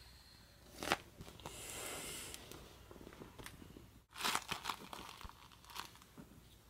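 Thin vinyl of a deflated inflatable swim ring crinkling and crackling as it is pressed flat and folded, with a short hiss of air escaping about a second and a half in.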